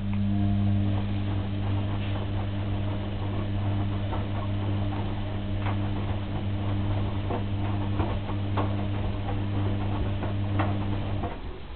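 Washing machine motor running with a steady low hum that stops about 11 seconds in, with scattered light clicks and ticks from the turning drum.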